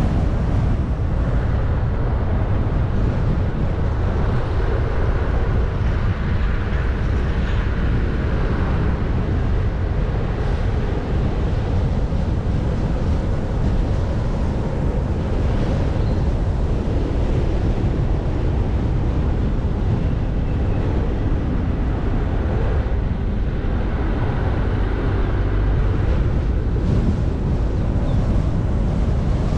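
A car being driven: steady road rumble and wind noise with no change in pace.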